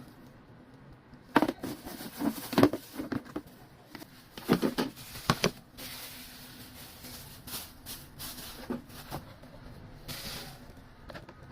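Scattered knocks, taps and rustles of a package being handled and opened, irregular, with a short spell of rustling near the end.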